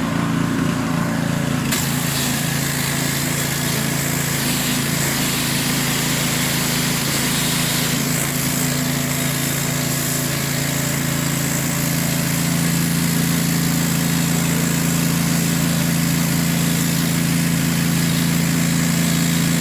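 Petrol-engined pressure washer running steadily, with the hiss of its lance jet coming in about two seconds in as it blasts muck out of the joints between paving stones.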